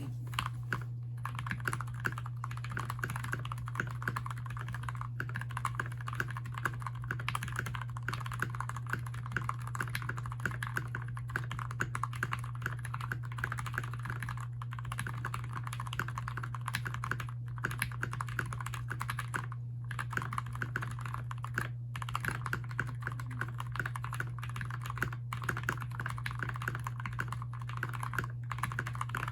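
Fast, continuous typing on a Keychron K6 mechanical keyboard with lubed switches, with a brief pause now and then. A steady low hum runs underneath.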